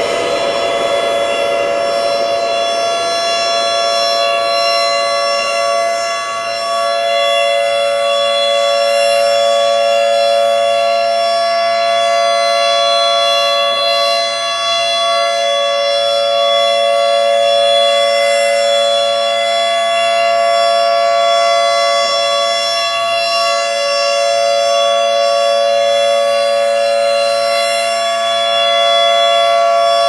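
Outdoor civil-defense warning siren holding a steady, loud two-note wail just after winding up to pitch.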